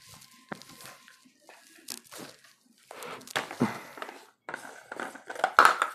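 White plastic RO membrane housing's screw cap being twisted off by hand: irregular plastic scraping and crackling with a few sharp clicks, loudest near the end.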